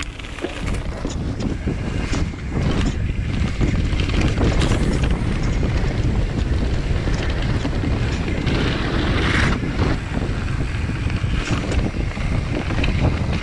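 Wind buffeting the action camera's microphone as a YT Capra mountain bike rolls downhill over grass and gravel, with scattered clicks and rattles from the bike and tyres over bumps.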